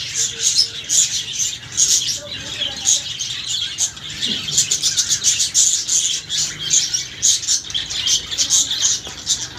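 Many small caged birds chirping and chattering at once in a breeding aviary, a dense, continuous high-pitched twittering.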